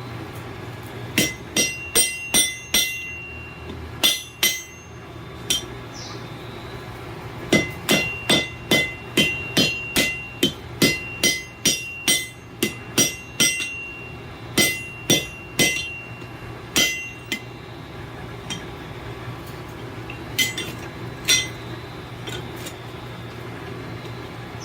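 Blacksmith's hammer striking a hot railroad-spike hook on the anvil, each blow ringing, in runs of quick blows about two a second with pauses between, the last few lighter and spread out. A steady low hum runs underneath.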